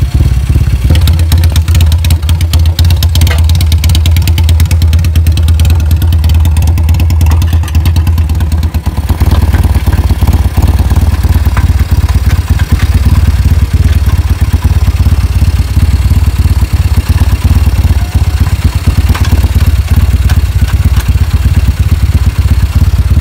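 Motorcycle engine running steadily and loudly through an aftermarket exhaust during a sound check. Its beat changes about nine seconds in.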